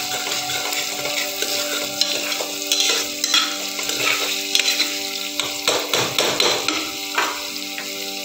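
Chopped onions frying in ghee in a metal pot, sizzling while a metal spoon stirs and scrapes against the pot in irregular strokes, busiest from about two seconds in until near the end. A steady hum runs underneath.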